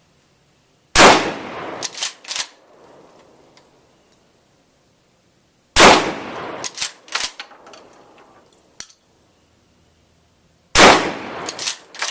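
Three gunshots at a shooting range, about five seconds apart. Each is followed within a second or so by a few smaller sharp clacks.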